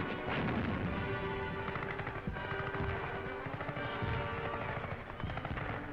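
Rapid, dense gunfire, machine-gun and rifle shots, over background music with sustained tones, on an old newsreel soundtrack with a narrow, muffled sound.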